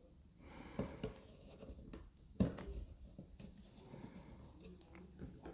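Faint rubbing and scratching of canvas cloth against a wooden stretcher bar as hands pull the cloth taut, with a few light clicks and one sharper tap about two and a half seconds in.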